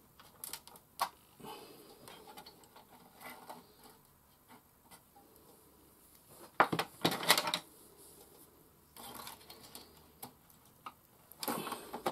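Scattered clicks and taps of small hand tools and parts being handled on a workbench, with a louder burst of clattering about seven seconds in and again near the end.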